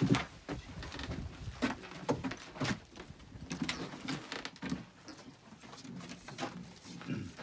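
Cartridges being loaded one at a time into a gun's magazine: a string of small, irregular clicks, with a louder knock at the start.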